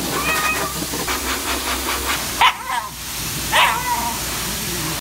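Shiba Inu yowling and whining in protest over the steady hiss of a high-velocity pet dryer, with the loudest cries about halfway through and again about a second later.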